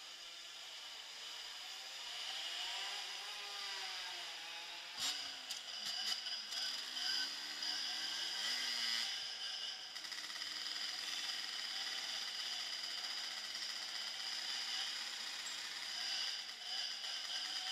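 Motorbike engine heard from a camera mounted on the bike, its pitch rising and falling as the bike pulls away and accelerates. A sharp knock comes about five seconds in.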